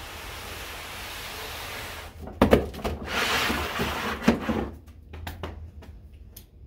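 A large cardboard box scraping as it slides across a tabletop, then sharp knocks and a loud rustling stretch as it is handled and set in place. A few light taps and clicks follow.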